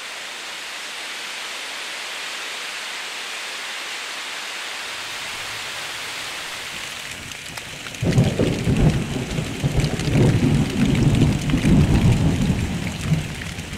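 Steady rain falling, an even hiss. About eight seconds in, a much louder, uneven low rumble sets in.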